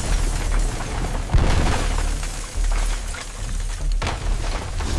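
Earthquake sound effects: a continuous deep rumble with repeated crashes and breaking debris, and one sharp crash about a second and a half in.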